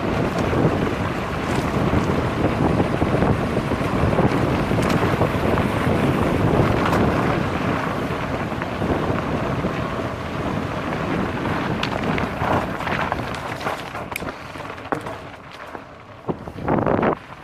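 Wind rushing over the microphone of a 360 camera on a mountain bike speeding down a gravel road, with scattered knocks and rattles from the bike over the stones. The rush eases off about three-quarters of the way through, with a brief loud gust just before the end.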